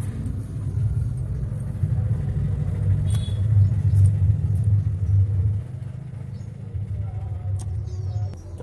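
Loud, low rumble that wavers in level and eases off about five and a half seconds in.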